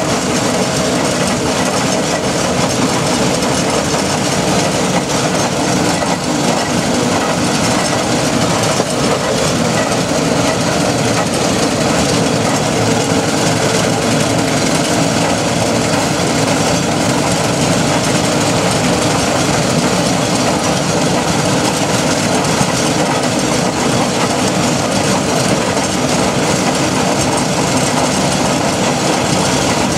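Aveling and Porter steam road roller under way on a tarmac lane: a steady, loud rumble and clatter of its iron rolls and engine, heard from a wagon it tows close behind.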